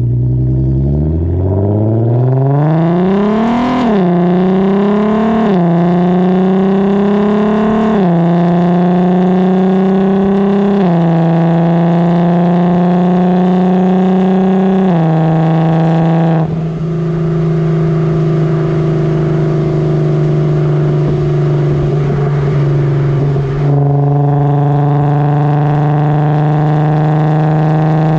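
Volkswagen Golf 4 R32's 3.2-litre VR6 heard at the tailpipe of its aftermarket F-Town Aggressor exhaust, accelerating hard: the note climbs and drops with quick DSG upshifts, five in all, then holds a steady drone as the car cruises, its tone changing for several seconds past the middle.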